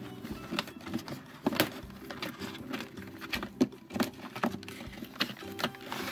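Cardboard packaging sleeve being worked and slid off a hard plastic toy case: irregular scraping, rubbing and sharp clicks of card and fingers against plastic.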